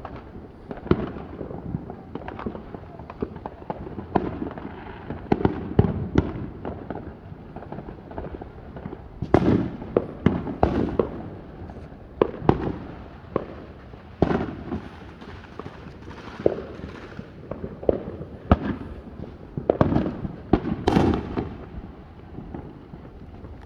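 Consumer fireworks going off in rapid, irregular succession: a steady run of sharp bangs and crackles, with denser volleys about a third of the way in and again near the end.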